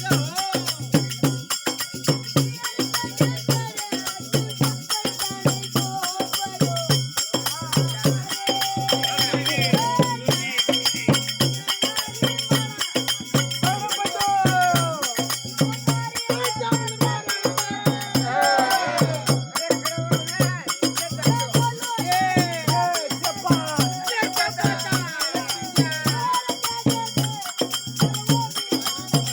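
Rajasthani folk devotional music: a young boy's singing voice over a steady drum beat and jingling tambourine-like percussion.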